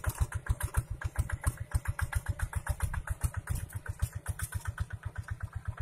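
Single-cylinder diesel engine of a two-wheel walking tractor running steadily under load while pulling a plow through dry soil, a regular chugging of about nine beats a second.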